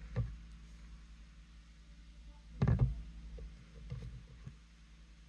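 A few dull thumps of handling noise, the loudest nearly three seconds in, as a plastic drink bottle is held and turned close to the microphone, over a low steady hum.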